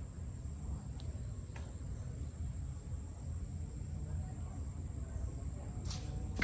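Insects trilling steadily on one high pitch over a low rumble, with a few faint clicks and a short noisy burst at the very end.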